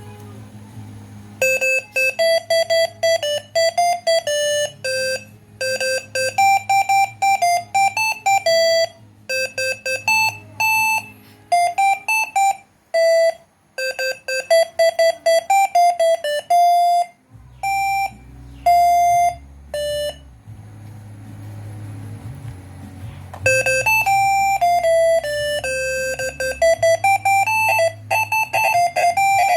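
Six-trumpet basuri 'telolet' air horn (MS1 module) playing a melody in short blasts that step from note to note. It falls silent for about three seconds past the middle, then starts the tune again.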